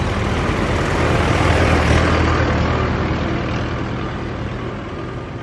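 Diesel farm tractor engine running steadily as the tractor drives past, loudest about two seconds in and then fading away.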